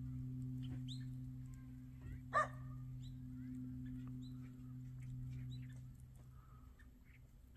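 A dog barks once, sharply, about two seconds in, over a steady low hum that fades out near the end, with small bird chirps scattered throughout.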